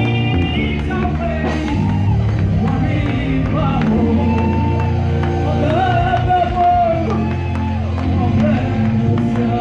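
A woman singing a gospel song through a microphone and PA over amplified backing music with a steady bass, holding long notes.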